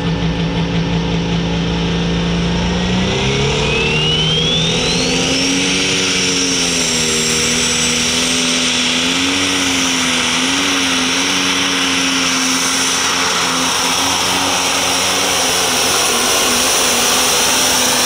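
Pro Stock pulling tractor's turbocharged diesel engine running at full power on a pull. About three seconds in, the engine note climbs and a turbo whistle rises steeply. The engine then holds under load with its pitch wavering until near the end.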